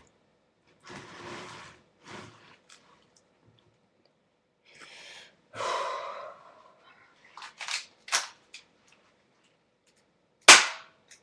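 Crosman Stinger P36 spring airsoft pistol being handled and cocked, with rustling and a few sharp clicks, then a single loud shot near the end.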